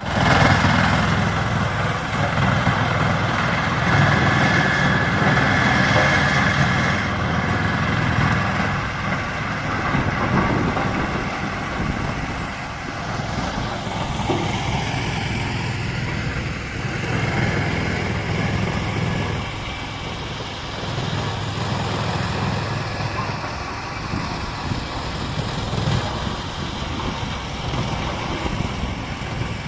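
Large industrial wood chipper-shredder running: a heavy, steady mechanical drone with a high whine that is strongest in the first several seconds, the level rising and falling with the load.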